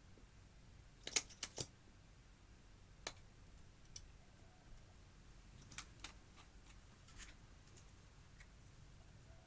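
Scattered sharp clicks and light crackles from hands working makeup and slime: a quick cluster of three or four about a second in, then single clicks every second or so.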